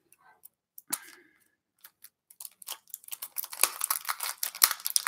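A new speedcube and its plastic packaging being handled: a few scattered small plastic clicks, then rapid crackling clicks from about three seconds in.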